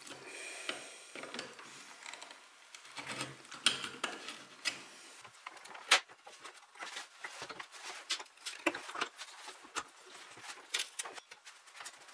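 Metal hand tools working loose the joint between a turned wooden leg and the rocker of an old rocking chair: an irregular run of scrapes, clicks and sharp knocks of steel on wood and old fasteners. The loudest knock comes about six seconds in.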